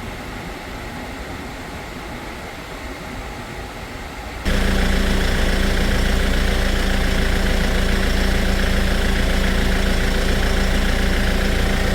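Hyundai Porter II truck engine idling steadily. About four and a half seconds in it abruptly becomes much louder, with a steady low hum.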